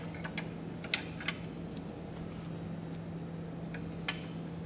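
A few light metallic clicks and clinks as a handle nut on its wire leader is pushed up into a steel frame hole, over a steady low hum.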